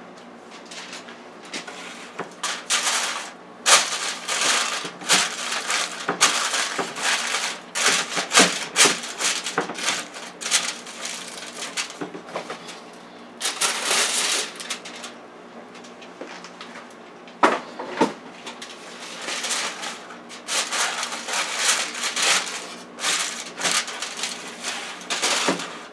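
Aluminium foil crinkling and rustling as it is pressed and crimped over the rim of a metal baking pan. It comes in repeated irregular bursts, with a couple of sharper clicks, about four seconds in and again around eighteen seconds.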